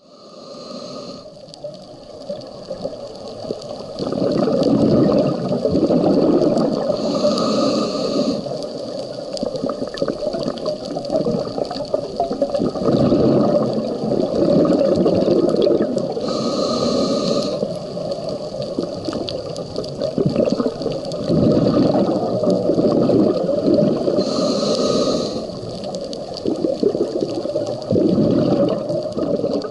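Scuba diver breathing through a regulator underwater: a short hissing inhalation about every eight seconds, each followed by a long bubbling rush of exhaled air.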